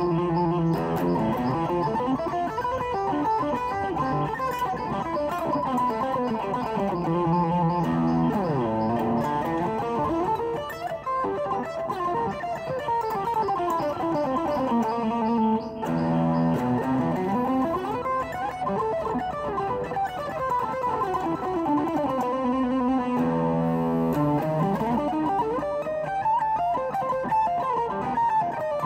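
Electric guitar playing a fast rock lick in E minor: rapid runs of single notes up and down the neck. The phrase comes round about every eight seconds, each pass dropping quickly to a low held note.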